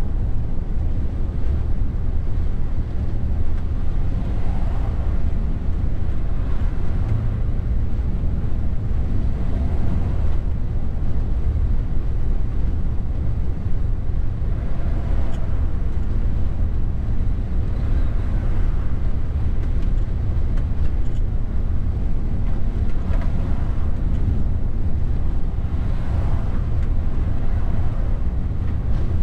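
Steady low rumble inside a Mercedes Actros truck cab at motorway cruising speed: engine drone mixed with tyre and road noise.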